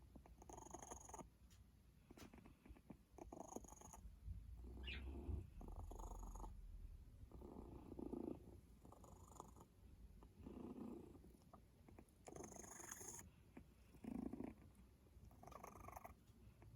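A cat with cat flu (feline upper respiratory infection) breathing noisily close to the microphone: faint, repeated congested breaths about every one and a half to two seconds, the sound of a cold on the mend. A brief rising squeak comes about five seconds in.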